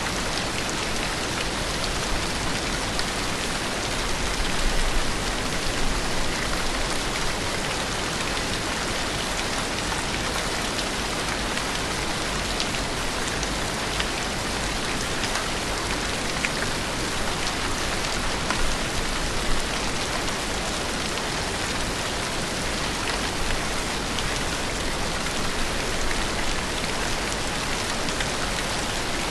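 Steady rain falling: an even, continuous hiss with scattered small drop ticks, swelling slightly now and then.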